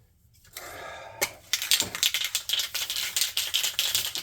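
A short rustle and a sharp click, then fast, steady rattling, many clicks a second, from about a second and a half in.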